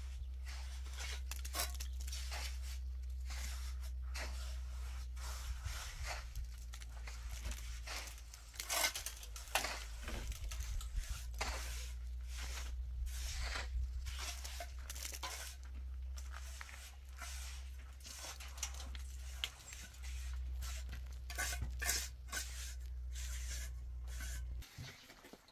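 Masonry work on a concrete block pillar: gritty scrapes and knocks as blocks are set and mortar is worked, coming irregularly and clustering near the middle and end. Under it a steady low rumble cuts off suddenly near the end.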